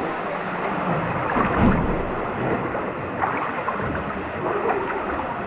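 Steady rush of flowing river water, with some splashing.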